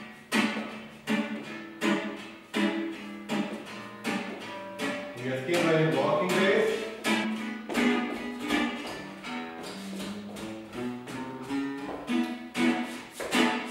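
Acoustic guitar playing swing rhythm chords, strummed on a steady beat about every three-quarters of a second, with a busier, more melodic passage around the middle.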